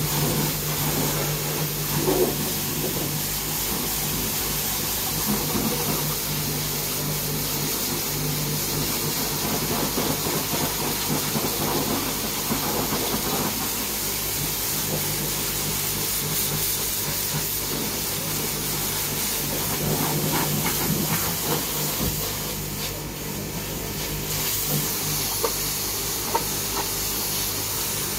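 High-pressure washer lance spraying water in a steady hiss against a vehicle's wheel arch and the wet floor, with the pressure pump's motor humming steadily underneath. The spray eases for a second or so about three-quarters of the way through.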